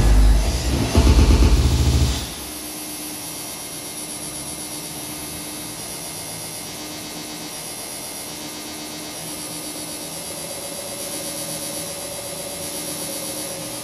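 Electronic glitch soundtrack for a projection piece: a loud noisy rumble cuts off suddenly about two seconds in, leaving a quieter hum with a short mid tone repeating every couple of seconds. A higher wavering tone comes in about ten seconds in.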